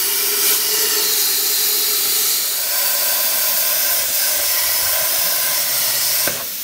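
Hypertherm Powermax30 XP plasma cutter torch cutting a round hole in a 3-inch steel exhaust pipe: a loud, steady hiss of the arc and air with a steady tone under it. It cuts off about six seconds in as the torch stops.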